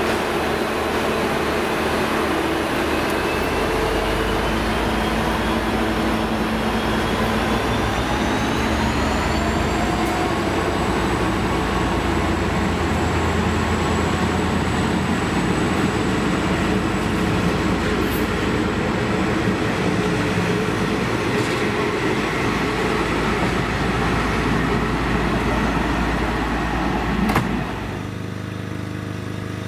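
V/Line diesel passenger train running loud and steady at close range, with a whine that rises in pitch during the first ten seconds as it pulls away, then holds steady. Near the end a click is followed by a sudden drop to a quieter hum.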